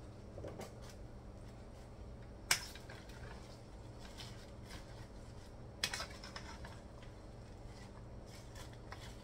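Cabbage being stirred in an aluminum stockpot with a black cooking spoon: soft rustling and scraping, with two sharp knocks of the spoon against the pot, about two and a half seconds in and about six seconds in, and a few lighter clicks. A low steady hum runs underneath.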